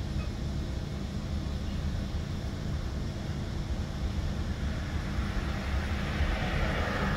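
Steady low engine rumble, with a hiss that swells over the last two seconds.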